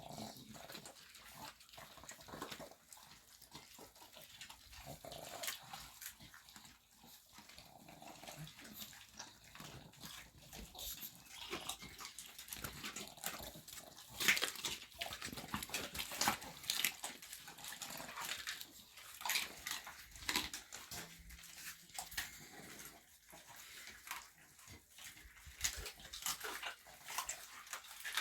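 Several dogs eating raw food together: wet chewing and smacking with many quick, irregular clicks and crunches, busiest in the middle stretch.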